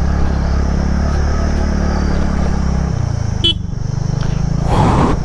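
TVS NTORQ 125cc single-cylinder scooter engine running while riding over a rough track, its note dropping about three seconds in as the throttle eases, with a short rough burst of noise near the end.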